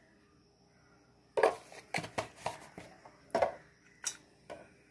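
A spoon clinking and tapping against a stainless steel bowl while turmeric powder is added to the flour: half a dozen short, separate metallic knocks after about a second of quiet.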